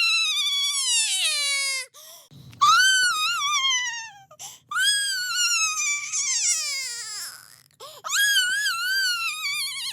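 A person's voice crying as a cartoon character, very high-pitched. It is a run of long wailing sobs, each sliding down in pitch with a wavering tremble, broken by short catches of breath.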